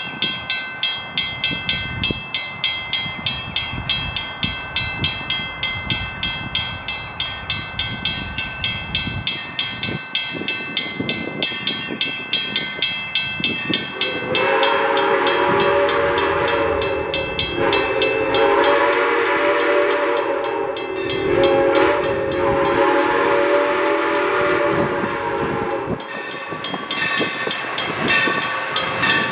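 Grade-crossing bell dinging steadily, about two to three strikes a second. About halfway through, an approaching steam locomotive's chime whistle sounds the crossing signal: two long blasts, a short one, and a final long one.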